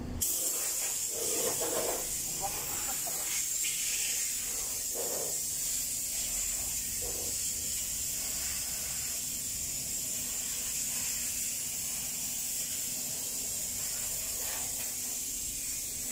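Steady high hiss of escaping compressed air, starting abruptly just after the start and holding level throughout.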